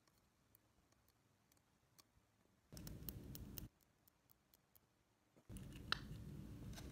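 Near silence with faint, scattered small clicks and ticks of plastic skincare bottles being handled. Twice there is a second-long stretch of soft, low rustling handling noise.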